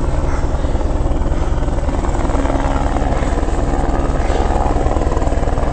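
Helicopter running steadily, its rotor chop a fast even pulse over the engine's low drone.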